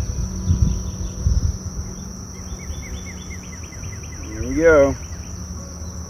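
Outdoor ambience beside an open beehive: a steady high insect trill and low wind rumble on the microphone. A quick run of short falling chirps comes about two and a half seconds in. About four and a half seconds in there is a louder, wavering pitched call that lasts about half a second.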